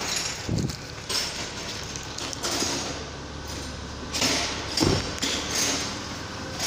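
A 2014 Ford Flex running after its fuel pump control module was replaced, now starting and running normally; a steady low rumble with two dull thuds, one about half a second in and one near five seconds.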